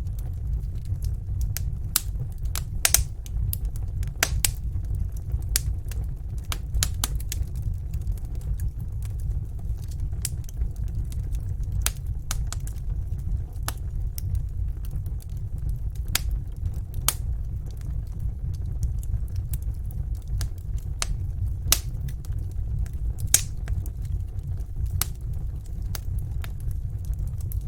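Wood fire crackling in a fireplace: irregular sharp pops and snaps, some much louder than others, over a steady low rumble.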